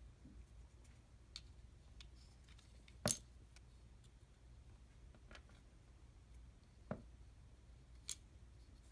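Quiet handling of a plastic cordless staple gun while staples are loaded into its magazine: a few faint clicks and one sharper click about three seconds in.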